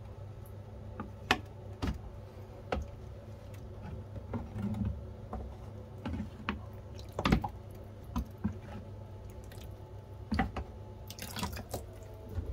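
Small splashes and drips of water with light knocks against a plastic container as shrimp are scooped out of it one by one. There is a louder splashy stretch near the end.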